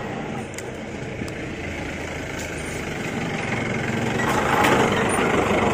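Motorcycle engine idling steadily, growing louder about four seconds in.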